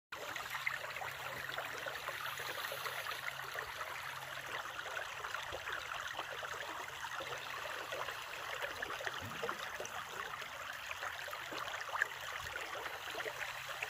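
Shallow brook trickling steadily over stones.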